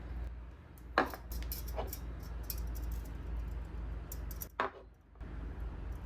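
Light clicks and clinks of kitchen items being handled, with a sharp knock about a second in and another about four and a half seconds in, over a low steady hum.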